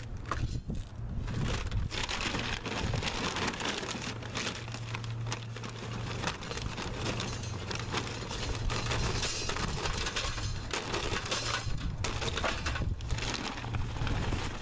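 A brown paper bag of lump charcoal crinkling as it is handled and tipped, with lumps of charcoal clattering into a chimney starter, dipping briefly near the end.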